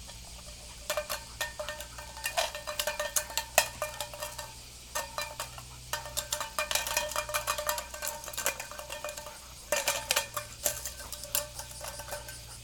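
A small metal bell jingling in bursts of rapid shaking, with short pauses between bursts.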